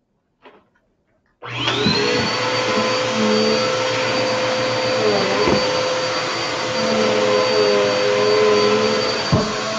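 Vacuum cleaner switched on about a second and a half in: the motor spins up with a rising whine, then runs steadily.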